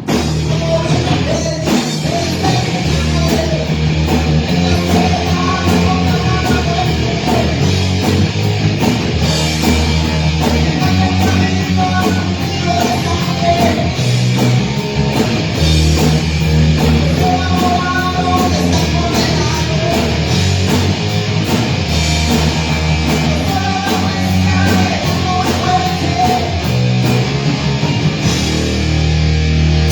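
Heavy rock band playing live: electric guitar, bass and drum kit in a loud, continuous metal song.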